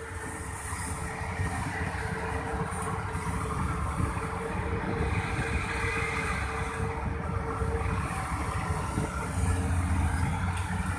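Heavy diesel engine of construction machinery running steadily, a little louder about nine and a half seconds in.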